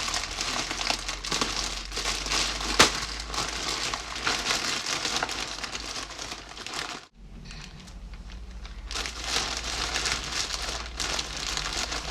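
Plastic packaging crinkling and rustling as a mail-order package is opened by hand, with one sharp click a few seconds in and a short break about seven seconds in.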